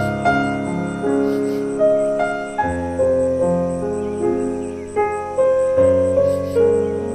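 Background music: soft piano playing a slow melody over sustained low bass notes, each note struck and left to ring.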